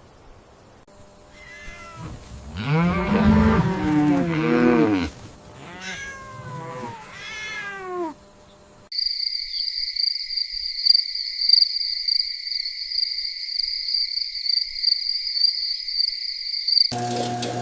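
Cat meowing, a run of rising-and-falling cries, the loudest a couple of seconds in. It gives way to about eight seconds of a steady, shrill, high-pitched trill.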